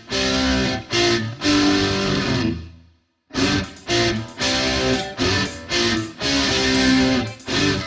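Rock music driven by strummed electric guitar chords. It cuts out to silence for a moment about three seconds in, then carries on.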